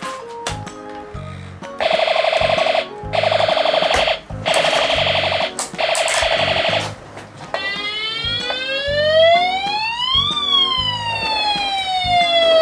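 Battery-powered toy fire truck's electronic siren: a rapidly warbling alarm tone in several bursts, then, over the last five seconds, a siren wail that rises slowly and falls away.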